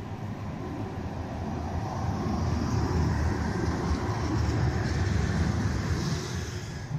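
City tram running on its rails with a steady low rumble that grows louder about two seconds in, a high hiss riding above it.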